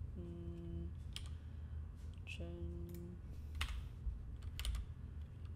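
Computer keyboard keys and mouse clicks tapping irregularly while shortcuts are entered, with two short, steady-pitched "mm" hums from a man's voice and a steady low background rumble.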